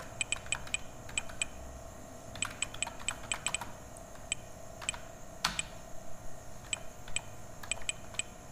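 Typing on a computer keyboard: keystrokes clicking in quick bunches, then more scattered, with one heavier keypress about halfway.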